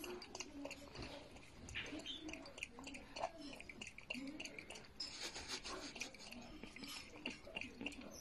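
Raccoon lapping water from a glass mug: faint, quick wet licks and clicks of its tongue in the water.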